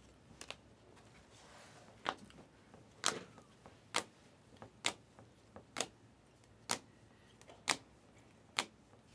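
Rigid plastic trading-card holders clicking against each other as each card is moved from the front to the back of a stack, about once a second, eight clicks in all.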